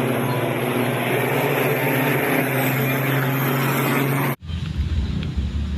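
Truck engine sound effect running steadily at one pitch, cutting off abruptly about four and a half seconds in, followed by a lower rumble.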